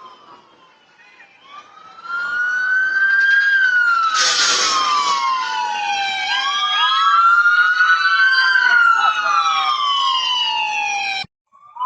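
Police car sirens wailing, two rising and falling wails overlapping, with a short rush of noise about four seconds in. The sound cuts off abruptly near the end and the wail starts again right after.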